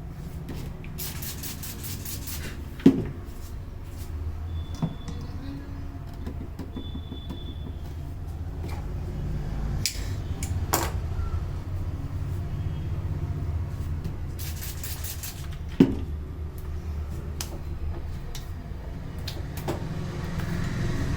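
Hands working over hair and skin in a head massage: swishing rubbing, then a sharp loud snap, twice, about 13 seconds apart, with a few softer taps between. A steady low traffic rumble runs underneath.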